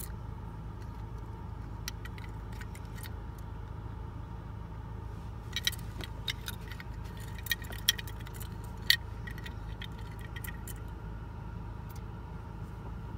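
Steady low rumble of a car cabin, with scattered light clicks and taps as a small die-cast toy car is turned over in a hand; a few sharper clicks come about halfway through.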